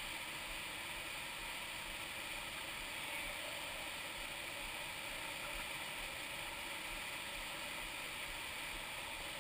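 River water rushing steadily through a rocky canyon stream, an even hiss that holds unchanged.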